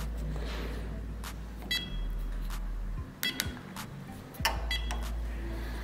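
WeLock smart lock keypad giving three short electronic beeps, about a second and a half apart, as RFID cards are held to its reader in card-adding mode.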